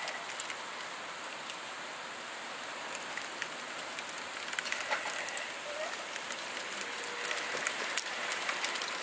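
Sleet mixed with freezing rain falling: a steady hiss with many sharp ticks of ice pellets bouncing, the ticks coming thicker in the second half.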